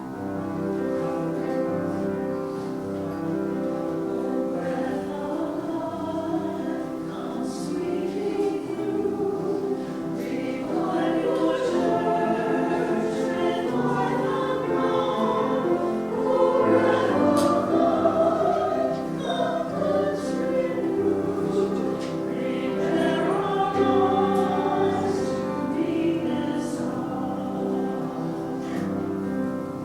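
Choir singing sacred music in a church, starting suddenly at the very beginning with many voices holding sustained chords.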